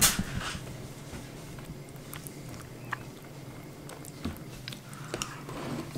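Metal spoon stirring yogurt and strawberries in a ceramic bowl: a sharp click at the start, then scattered light clicks and soft scrapes.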